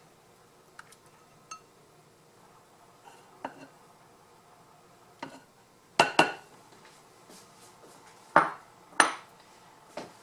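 Sour cream being scraped out of a small glass bowl with a rubber spatula over a glass mixing bowl: a few faint clicks, then four sharp clinks of the bowls and spatula knocking together in the second half, the first two close together.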